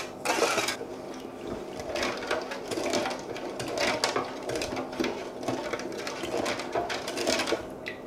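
A spoon stirring sugar and water in an aluminium pot, first a metal spoon and then a wooden one, in repeated gritty scraping strokes as undissolved sugar is dragged across the pot's bottom so it does not stick while the syrup heats. A faint steady hum runs underneath, and the strokes stop shortly before the end.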